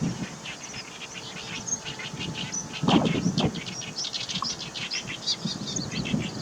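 Great reed warbler singing a rapid run of short notes, while gusts of wind buffet the microphone, the strongest about three seconds in.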